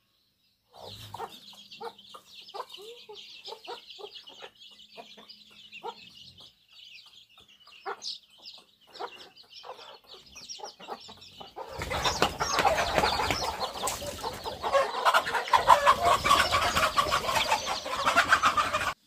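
Chickens clucking in short, scattered calls over a steady high-pitched drone. About twelve seconds in, a much louder, dense noise starts and runs on.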